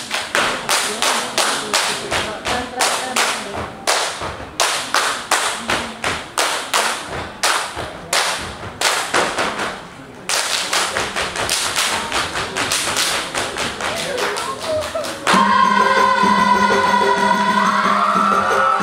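Ratoh Jaroe body percussion: a seated group clapping and slapping chest and thighs in fast unison strokes, with a short break about ten seconds in before a faster run. About fifteen seconds in the strokes stop and music with a held, sliding melody over a steady drone comes in.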